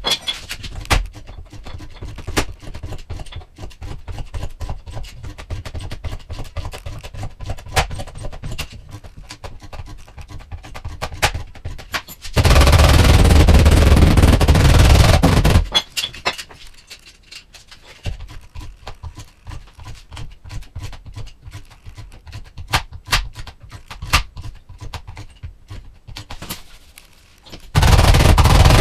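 Bodywork tool noise: rapid, irregular sharp clicks and taps, with a loud steady power tool running for about three seconds midway and starting again near the end.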